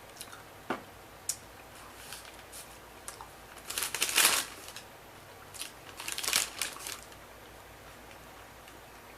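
Crinkly packaging being handled: two bursts of crinkling about four and six seconds in, with a few sharp clicks before them.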